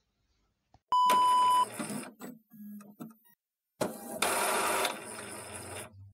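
A short electronic beep, one steady tone lasting under a second, comes about a second in. It is followed by a few faint ticks and, about four seconds in, a burst of static-like hiss lasting roughly two seconds. It is a transition between recorded listener voice messages.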